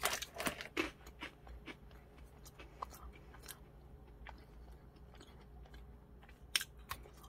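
Crisp sesame stick snack being bitten and chewed, a run of sharp irregular crunches that is densest in the first second and then thins to scattered crackles.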